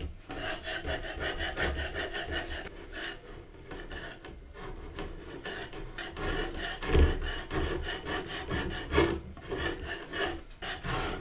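Metal scraper dragged in quick repeated strokes over a wooden tabletop, lifting varnish softened by chemical stripper, with a few short pauses between runs of strokes.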